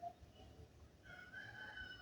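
A faint, drawn-out bird call: one held note that starts about a second in.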